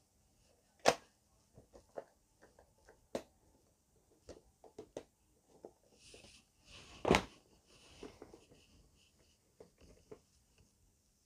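Plastic VHS cases and cassettes handled: scattered light clicks and knocks. Two sharp, loud clacks stand out, about a second in and about seven seconds in, with a short rustle just before the second.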